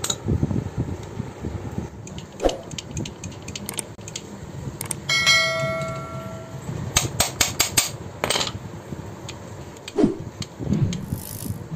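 Light clinks and knocks of a starter motor's Bendix drive gear assembly being handled over a metal basin, with a bell-like ding and a quick run of clicks from a subscribe-button sound effect near the middle.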